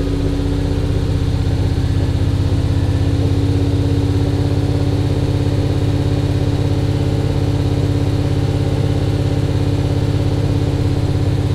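Toyota 1UZ-FE 4.0-litre V8 idling steadily, heard from the driver's seat of the pickup it is swapped into.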